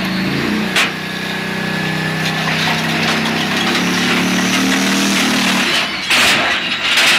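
A tank's engine running under load as the tank climbs a trailer ramp, with its tracks clattering. A sharp click comes about a second in, and two loud rough surges come about six seconds in and again near the end.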